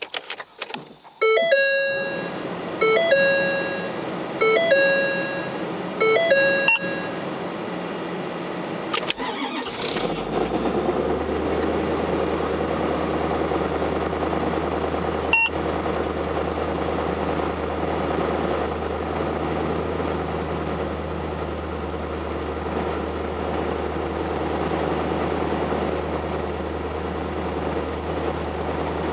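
A few clicks, then the truck's dashboard chime sounds four times. About ten seconds in, the 2011 Ford F-350's 6.7L Power Stroke V8 turbo-diesel starts from a -30°C cold soak and settles into a steady warm-up idle.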